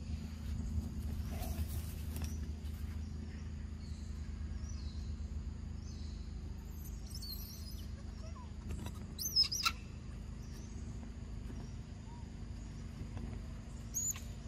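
Outdoor ambience with a steady low hum and a faint insect buzz, broken by a quick pair of short, high, squeaky animal calls about nine seconds in and another brief one near the end.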